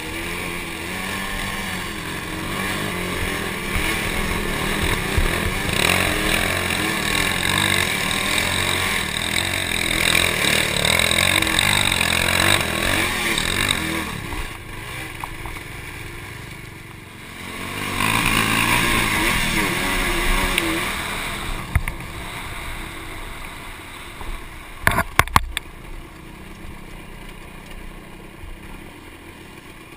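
Honda sport quad's single-cylinder engine revving up and down under throttle at close range, with wind rushing over the helmet-mounted microphone. It eases off in the last third as the quad slows, with a few sharp knocks about 25 seconds in.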